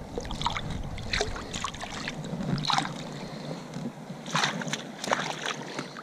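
River water splashing and dripping around a mesh landing net held in the shallows with a fish in it: several short splashes over a steady low wash of water, with wind rumble on the microphone in the first second or two.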